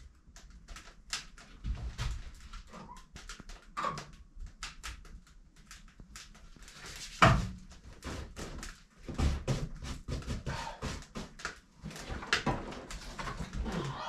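Clicks, knocks and clatter of someone moving about in a small wooden room and handling gear, with one louder thump about seven seconds in.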